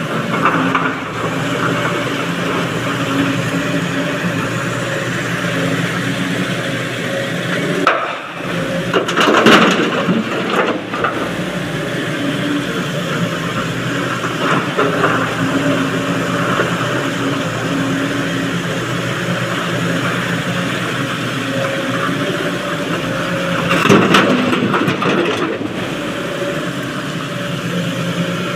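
Sany crawler excavator's diesel engine running steadily under hydraulic load. There are two louder bursts of clattering, about nine seconds in and again near the end, as buckets of broken rock are tipped into the dump truck's steel body.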